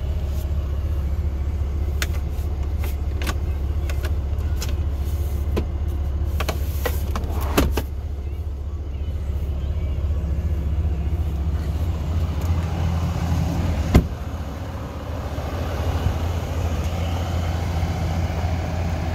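Ram 2500 pickup engine idling with a steady low hum. Scattered sharp clicks come a few seconds in, and there is one loud knock about fourteen seconds in.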